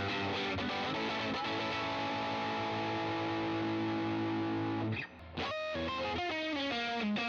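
Electric guitar with a single bridge pickup, played through an overdriven drive tone: a few quick notes, then a chord held and ringing for a few seconds. The chord is cut off abruptly, followed by a fast single-note lick with string bends.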